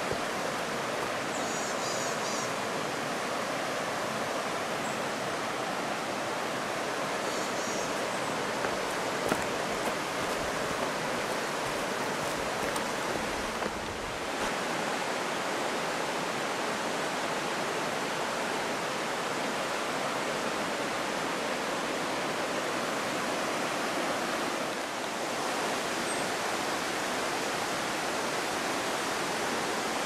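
Steady rush of a mountain river running over rocks in the gorge below, an even hiss. Faint high chirps come twice in the first ten seconds.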